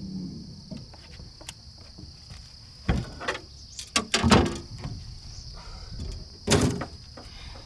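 A few sharp knocks and thumps, about three and four seconds in and again near six and a half seconds, the loudest at about four seconds. Under them is a steady, high drone of marsh insects. A low motor hum winds down right at the start.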